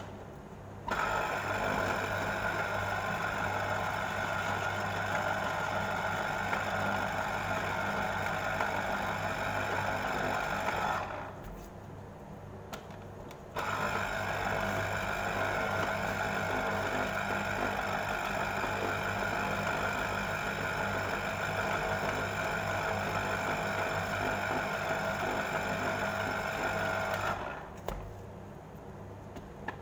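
Braun electric citrus juicer's motor whirring steadily as orange halves are pressed onto its spinning reamer. It stops for a couple of seconds about eleven seconds in, starts again, and stops once more near the end.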